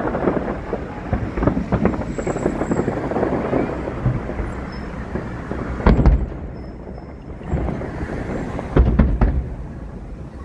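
Aerial fireworks bursting: a dense run of crackling pops, then two heavy booms about six and nine seconds in.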